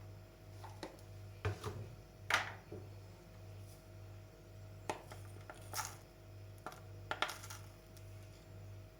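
Light clinks and taps of a metal spoon against dishware: a scatter of short knocks, the loudest about two and a half seconds in with a brief ring, over a steady electrical hum.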